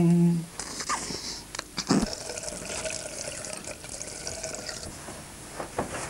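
Tap water running into a bathroom sink as a toothbrush is rinsed under it.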